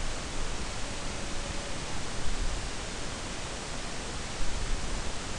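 Steady background hiss of the recording, with no distinct sound event.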